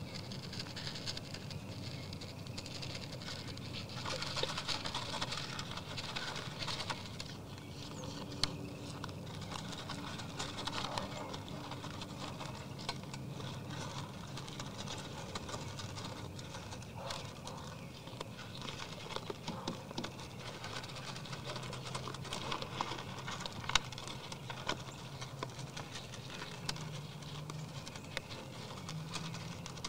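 Whitetail deer eating from a feed trough: irregular crunching and clicking as they chew and nose through the feed, with a couple of sharper clicks.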